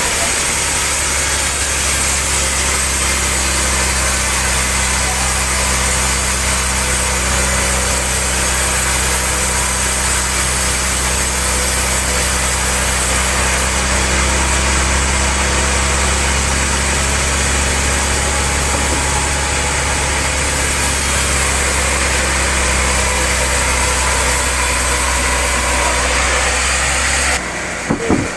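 Sawmill machinery running steadily, a low hum under a dense hiss. It stops abruptly about a second before the end, followed by a short knock.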